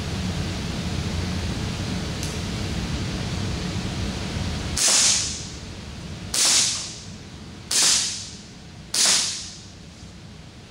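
Sig Sauer P226 X-Five full-metal CO2 BB pistol fired four times, semi-automatic with blowback. The first shot comes about five seconds in and the others follow at roughly a second-and-a-half intervals, each a sharp crack that dies away over about half a second.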